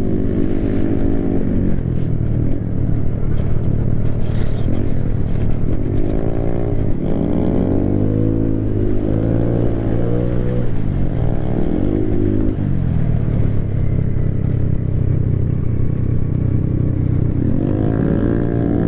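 Vespa scooter's single-cylinder engine and exhaust running at road speed, the revs rising and falling in smooth sweeps several times as the throttle is opened and eased, with steady wind noise.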